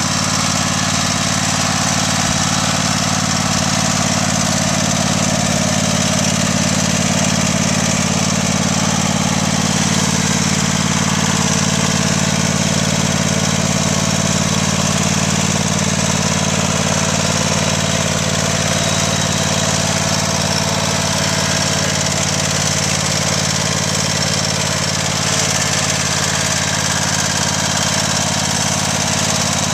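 Craftsman riding lawn tractor's engine running at a steady speed as the tractor drives along, with no change in pitch or level.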